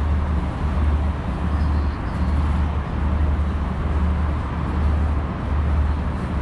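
Steady road traffic noise from a busy city street, with a heavy low rumble that dips briefly every second or so.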